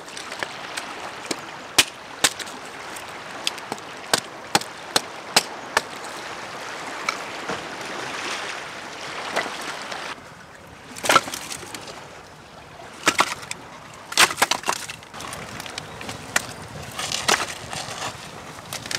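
A series of sharp cracks and knocks from hands working among sticks and stones, irregular and coming in clusters, over a steady hiss of wind and surf.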